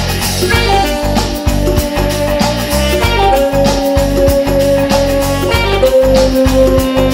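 Tenor saxophone playing long held notes over a backing track with a steady beat and bass line.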